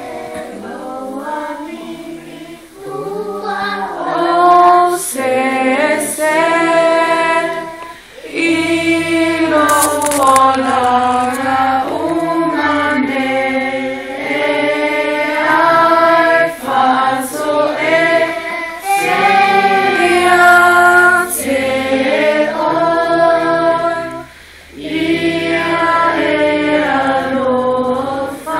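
A group of voices singing together, with brief breaks between phrases.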